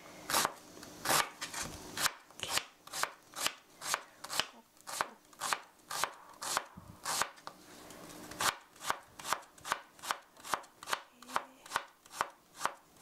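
Kitchen knife chopping on a cutting board, finely mincing onion: a steady run of quick, sharp strokes, about three a second.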